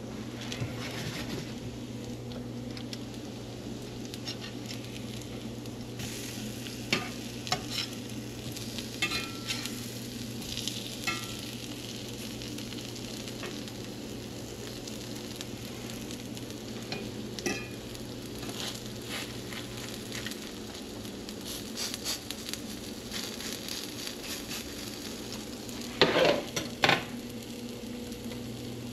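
Oatmeal breakfast patties sizzling steadily in a frying pan, with scattered light scrapes and taps of a fork against the pan. A louder clatter of utensils comes near the end, over a steady low electrical hum.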